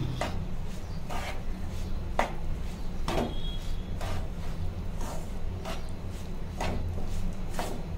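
Spatula scraping and stirring a crumbly roasted besan-and-rava ladoo mixture in a nonstick kadhai, in short strokes about once a second, over a steady low hum.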